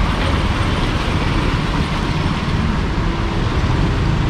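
Steady street noise of road traffic passing.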